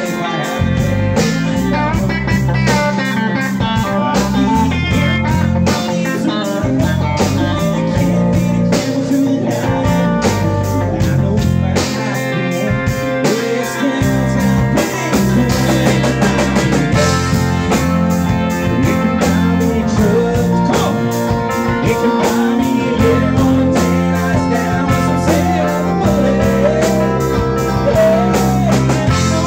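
Live country-rock band playing: electric guitar lines over bass, keyboard and a steady drum beat.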